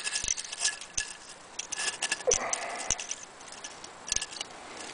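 Irregular metal clicks and ticks as a screw-on camping gas stove burner is handled on its gas canister and its pot-support arms are folded out.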